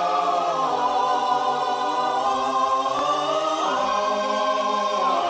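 A choir singing long held chords without instruments, the chord shifting slowly a few times.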